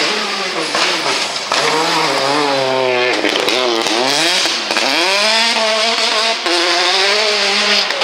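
Citroën DS3 rally car engines revving hard on a gravel stage, the pitch climbing and falling repeatedly with throttle lifts and gear changes, with a sharp drop about three seconds in.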